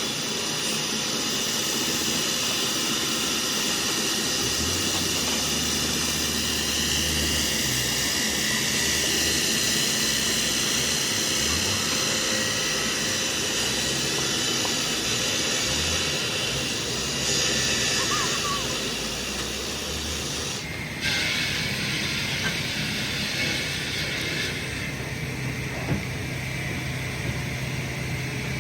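Steady heavy machinery noise: a continuous hissing rush over a low engine hum, changing abruptly about two-thirds of the way through, with a few light knocks after that.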